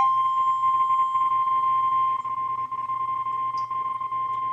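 NOAA Weather Radio warning alarm tone: a single steady 1050 Hz beep held unbroken, which signals that a warning follows. It is heard over faint radio hiss and a low hum.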